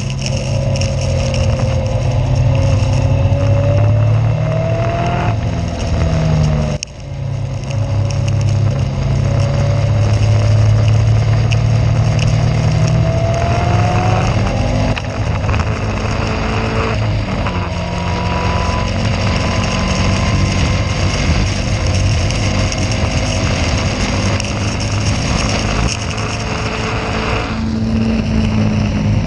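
Caterham race car's engine running hard, heard onboard, its revs rising and falling, with a brief sharp cut in the sound about seven seconds in.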